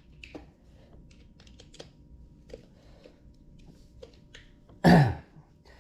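Scattered small clicks and light knocks of parts and tools being handled while fitting a scooter wheel and lining up its bolt holes. About five seconds in, a brief voice sound that falls in pitch.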